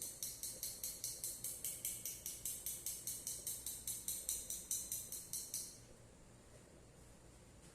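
Fast, even, high-pitched jingling or scraping strokes, about four or five a second, that stop abruptly near the end.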